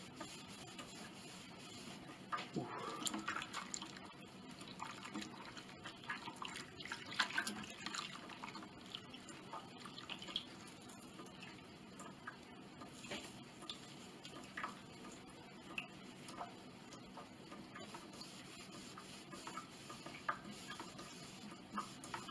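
Small cloth rag being dipped and squeezed in a bowl of warm water, with drips and splashes, and rubbed wet along a wooden strip to wash off old grime. Faint, with scattered small clicks and wet sounds.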